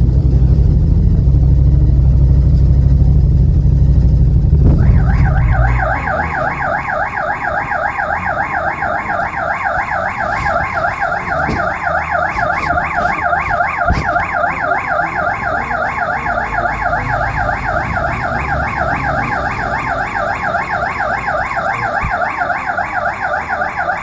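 Yamaha MT-07's parallel-twin engine idling through an aftermarket muffler with a deep rumble, then shut off about six seconds in. About five seconds in, a vehicle alarm starts a fast, rising-and-falling electronic warble that keeps going: the kind of alarm the rider says his loud exhaust kept setting off.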